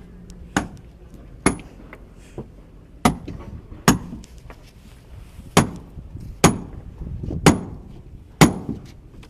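Repeated hammer blows: eight sharp strikes, roughly one a second and loosely in pairs, each with a brief ring.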